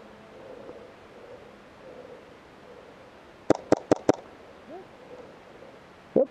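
Airsoft gun shots: four sharp cracks in quick succession, about five a second, a little over three seconds in, and one more sharp crack near the end, over a faint steady hiss.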